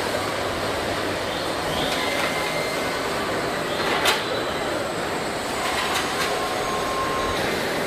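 Car factory body-shop machinery noise: a steady mechanical din with scattered metallic clicks and clanks, one sharp clank about four seconds in, and faint whirring tones from the robots.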